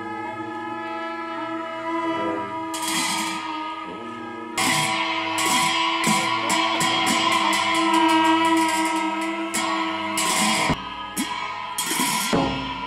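Tibetan Buddhist monastic ritual music: long horns and shawms holding steady notes, joined about three seconds in by clashing cymbals that settle into a fast even beat of about three strokes a second.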